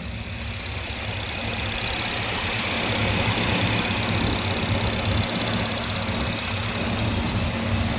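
1963 Plymouth Sport Fury's 383 Super Commando V8 idling through its stock stainless exhaust, running steadily and getting slightly louder over the first few seconds.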